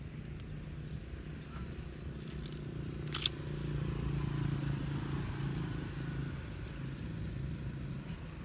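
Steady low engine drone in the background, slightly louder from about three seconds in, with a single sharp click about three seconds in.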